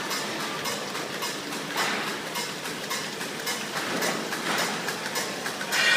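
Pre-fold and crash-lock bottom folder gluer running: a steady mechanical clatter with rapid, regular clicking as cardboard box blanks feed through.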